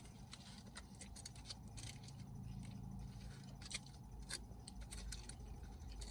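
Faint chewing with irregular sharp mouth clicks while eating a taco, over a low steady hum.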